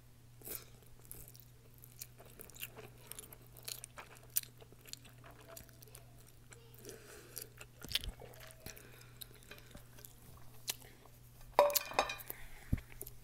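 A person chewing a mouthful of spicy noodles, with many small mouth clicks, and a short louder burst of sound near the end.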